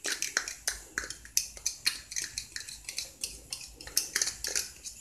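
Metal spoon clicking and scraping rapidly against a small container, several light taps a second, as the leftover minced garlic is knocked out into a frying pan; the taps stop near the end.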